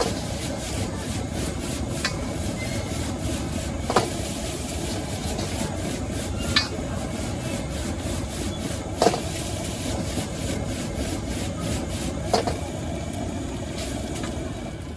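Stir-frying in a wok over a steady burner noise, with a metal spatula scraping the pan and knocking sharply against it every two to three seconds.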